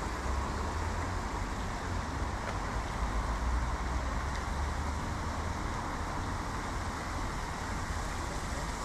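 Steady rumble of motor vehicles, a continuous low drone under an even hiss with no distinct events.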